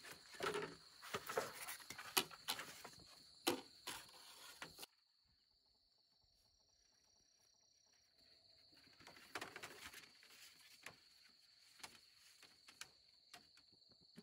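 Dry bamboo poles clattering and knocking together as they are sorted by hand, over a steady high insect buzz. About five seconds in the clatter stops short, and only the insect buzz is left, with scattered knocks and rustling from a bamboo pole being handled later on.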